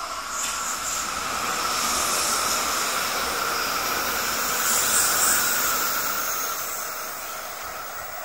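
N700 series Shinkansen train passing at speed, a rushing hiss of wheels and air. It builds over the first two seconds, is loudest about five seconds in, and fades as the train moves away.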